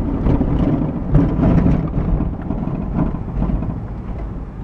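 Low road and engine noise of a moving car heard from inside the cabin, loudest about one to two seconds in and easing off toward the end.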